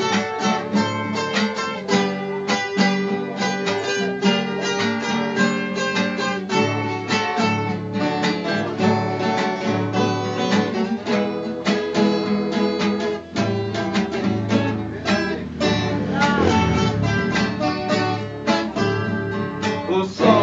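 Instrumental introduction of a Brazilian caipira song: a viola caipira picks a quick run of plucked notes over guitar and bass accompaniment.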